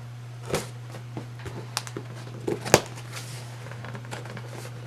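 Small cardboard box being opened by hand: scattered taps, snaps and short rustles of cardboard and packaging, the loudest a sharp snap a little past the middle. A steady low hum runs underneath.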